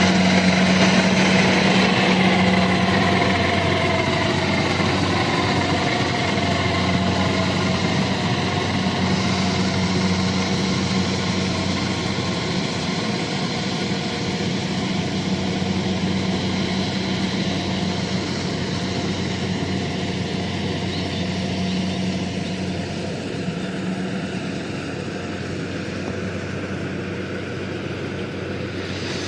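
Rice harvester's engine running steadily with a constant low hum, slowly fading.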